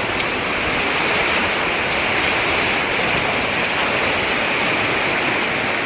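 Ocean surf at close range, a steady rush of breaking and washing waves.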